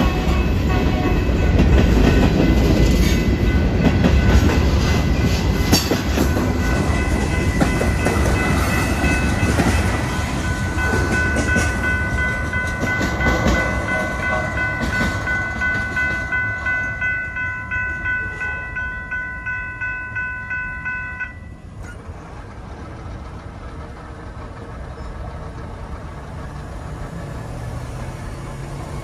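Freight train's covered hopper cars rolling past a grade crossing with a heavy wheel rumble and clatter, fading as the train moves on. Over it the crossing's warning bell rings at about two strokes a second and stops suddenly about 21 seconds in, as the crossing clears and the gates go up. Road traffic is heard quietly afterward.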